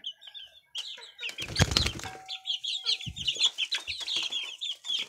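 Chickens and chicks calling, with a rapid run of high, short peeps, and a burst of wing flapping about a second and a half in.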